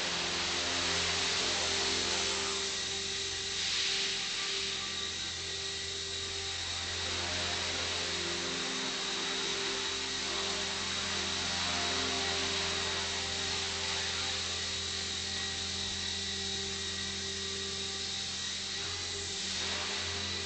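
Electric motor and main rotor of a KDS 450 Quiet flybarless RC helicopter running, a steady high whine over a low hum whose pitch wavers slightly as the throttle and pitch shift.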